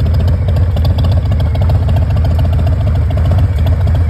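Harley-Davidson Milwaukee-Eight 114 V-twin idling steadily through Vance & Hines exhaust pipes, a fast even low pulsing with no revving.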